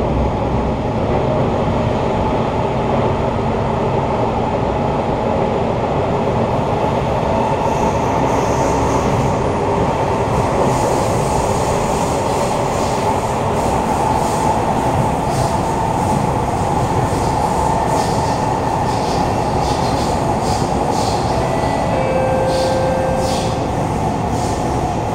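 Kawasaki Heavy Industries C151 metro train heard from inside the car while running through a tunnel: a steady, loud rumble of wheels on rail mixed with traction-motor noise from its GTO-VVVF drive. The motors are somewhat loud in this car. From about the middle on come light high clicks and wheel hiss, and a short steady tone sounds near the end.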